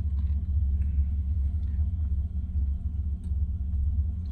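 A steady low rumble with a hum in it, unchanging throughout, with only faint small sounds above it.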